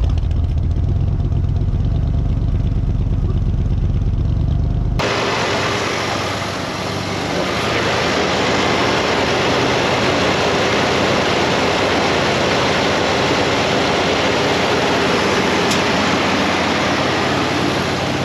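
1984 Ford F-150's carbureted 302 V8 running steadily soon after its first start in years. The first five seconds are a deep exhaust rumble at the rear, then it changes abruptly to a harsher, hissier engine-bay sound. One bank of the glasspack dual exhaust seems blocked, which the owner puts down to a mouse nest.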